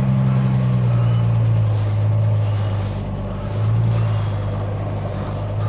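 1954 Rover P4 90's inline-six engine running at low speed as the car manoeuvres, heard from inside the cabin as a steady low hum. The hum dips about three seconds in and picks up again soon after.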